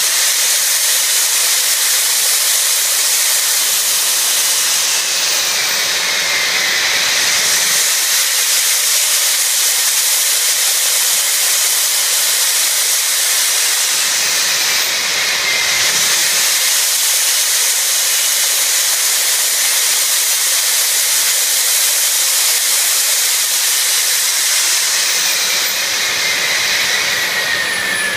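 Small jet turbine engine running at high power: a loud, steady jet hiss with a high whine that drops in pitch three times.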